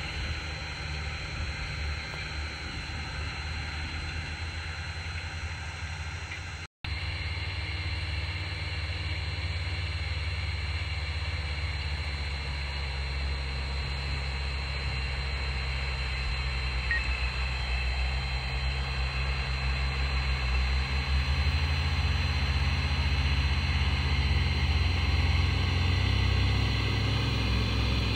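Landini Mythos tractor's diesel engine running steadily under load while pulling a cultivator, growing louder toward the end. The sound cuts out completely for a moment about seven seconds in.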